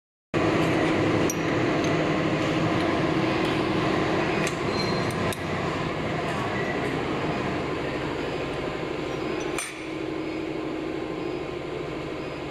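Metal clinks of aluminium mould plates being handled on a popcorn cup filling machine during a mould change: a few sharp clinks and knocks over a steady machine hum.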